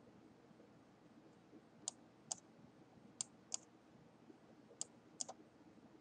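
Computer mouse clicking: three quick pairs of sharp clicks, about two seconds apart, over near silence.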